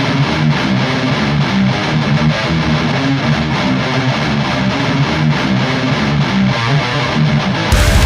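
BC Rich Warlock electric guitar playing a metal riff, for a tone test. Near the end the sound turns louder and fuller, with a much heavier low end.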